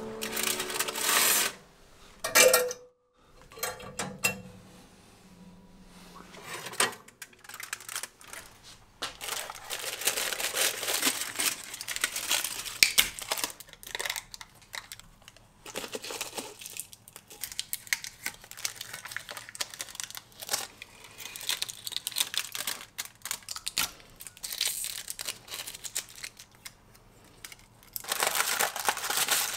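Aluminium foil crinkling and rustling as it is unwrapped from coated two-stroke engine casings, with small clicks and knocks of the metal parts on the workbench. A sharp knock with a brief ring comes about two and a half seconds in.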